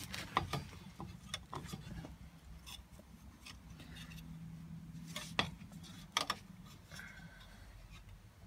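Light metallic clicks and knocks of rear drum brake shoes and hardware being handled and fitted by hand against the backing plate, with two sharper knocks about five and six seconds in.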